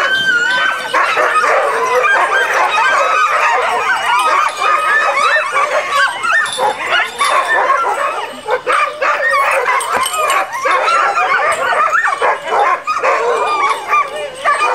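A pack of sled dogs barking and yipping all at once, many voices overlapping in a loud, continuous chorus of short, high yelps.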